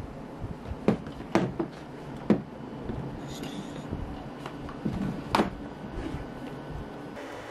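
Several sharp knocks and clicks of objects being handled over a steady low hum, with the strongest about a second in and another near the middle.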